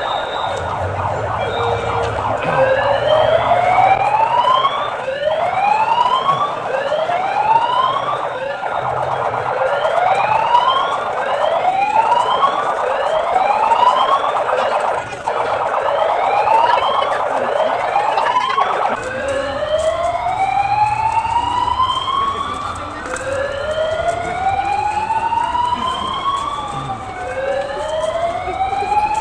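Siren sounding in repeated rising whoops, about one every second and a half, then changing about two-thirds of the way through to slower, longer rising sweeps.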